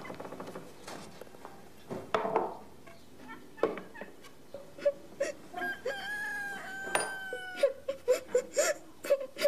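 A rooster crows once, a drawn-out call of about two seconds, starting around six seconds in. After it, from about eight seconds, come short rhythmic sobs of someone crying.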